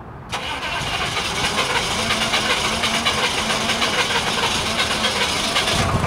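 Cold diesel truck engine being cranked over by its starter on a cold start, starting suddenly and going for about five and a half seconds before the sound drops sharply.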